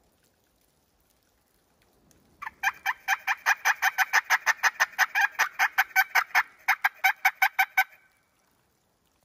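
Wild turkey gobbling: a loud, rapid rattling run of notes, about eight a second, that begins a couple of seconds in and lasts about five seconds.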